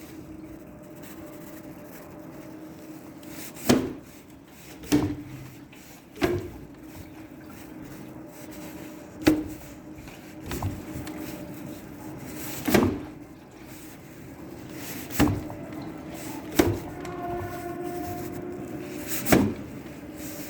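Front fork knocking while riding: about nine sharp knocks at uneven intervals of one to three seconds over a steady low hum. The knocks are the fault being shown, a knock in the front fork.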